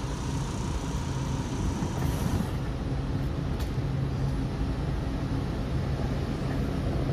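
Steady low rumble and hum of a train running, holding level throughout with no horn sounding.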